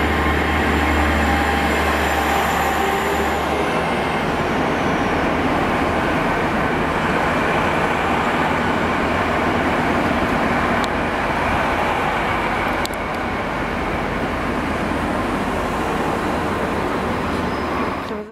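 GWR intercity train running past along the platform: a steady rumble of wheels on rail and running gear, with a low hum under it that stops about three and a half seconds in.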